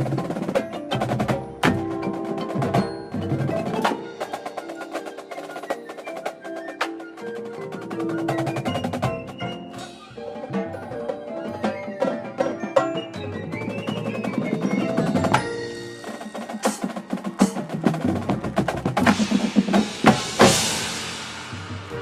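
Marching band music carried by its percussion: mallet instruments, wood block and snare drum, with many sharp hits over held pitched notes and a loud swell near the end.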